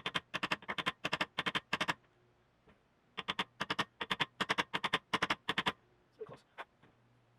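A rapid series of short, sharp taps or clicks, about four or five a second, in two runs of roughly two and a half seconds each with a short gap between, then a few fainter ones.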